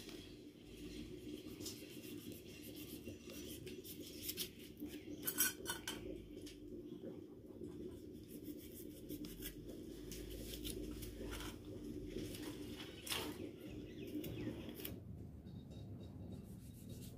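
A small kitchen knife slicing tomatoes held in the hand, with light clicks and taps of the blade and of pieces dropping into stainless steel bowls; the loudest cluster of clicks comes about five seconds in, another near thirteen seconds, over a faint steady low hum.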